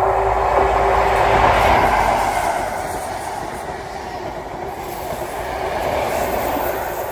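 Great Western Railway HST, a Class 43 diesel power car with its coaches, passing through the station at speed with engine and wheel-on-rail noise. A steady tone stops about a second in, and the noise swells and fades as the train passes.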